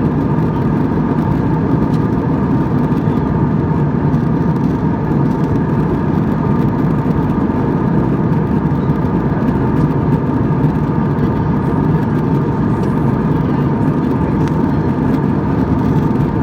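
Steady jet airliner engine and airflow noise heard inside the passenger cabin in flight: a constant low rushing drone with faint steady whining tones above it.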